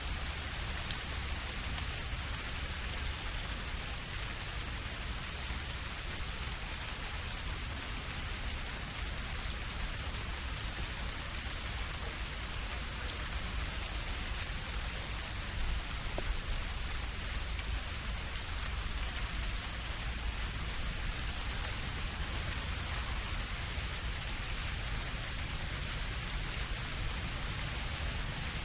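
Steady rain falling on surrounding surfaces, with drips falling from the leaves of a tree overhead and a low rumble underneath.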